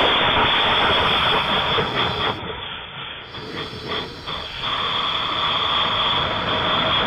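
Wind rushing loudly over the microphone of a helmet camera in flight after being shot from a homemade pneumatic cannon. The rush dips and is broken by a few knocks between about two and four and a half seconds in, then comes back steady.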